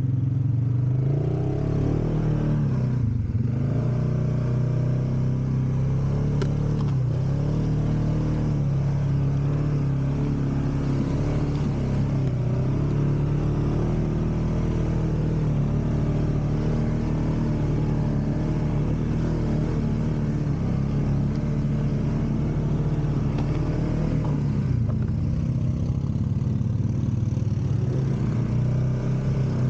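Off-road utility vehicle engine running continuously, its revs rising and falling a little.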